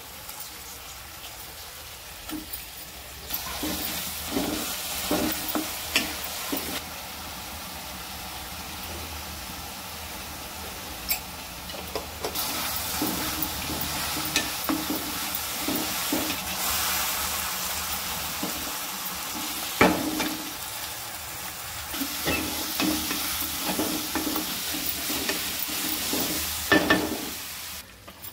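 Food sizzling as it fries in a hot pan while being stirred, with a steady hiss and occasional short knocks of the spoon or spatula against the pan.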